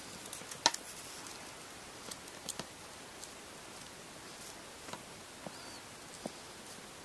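Light handling sounds of hand-sewing a zori's front thong: thread and cord pulled and rubbed by the fingers, with a few scattered soft clicks, the sharpest just under a second in.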